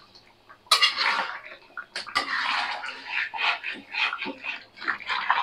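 A metal spoon stirring a thick, wet chicken stew with yogurt in a kadhai: irregular wet squelching and sloshing strokes, with a few sharp clinks of the spoon against the pan, one just under a second in and two about two seconds in.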